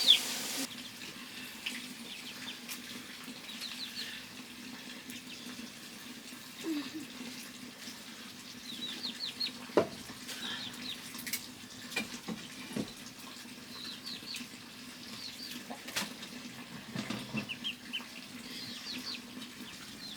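Small birds chirping in short runs of quick falling chirps, every few seconds, over a faint steady low hum, with a few sharp clicks.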